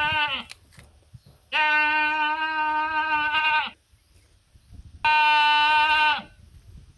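Sheep bleating: the end of one call, then two long, loud, steady-pitched bleats, the second shorter, each dropping slightly in pitch as it ends.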